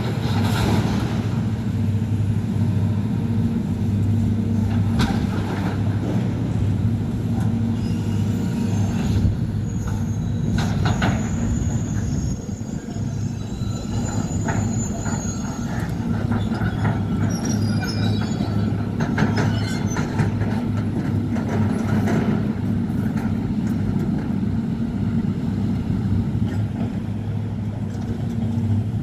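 Demolition excavator's diesel engine running steadily, with scattered metal clanks and high screeches of scrap metal being grabbed, scraped and dropped, most of them through the middle stretch.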